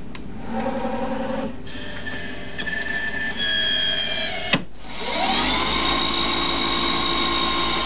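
Hercus PC200 CNC lathe: a few short machine whirs, then a sharp click about four and a half seconds in. The spindle then winds up in a rising whine and settles into a steady high whine as the chuck comes up to speed before the first cut.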